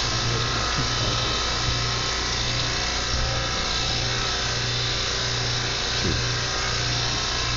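Steady machine whir over a constant low hum, like a motor running.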